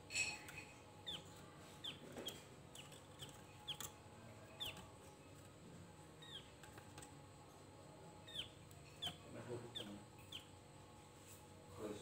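Javan grey-throated white-eye (opior jawa) giving short, falling chip calls, about a dozen at irregular intervals.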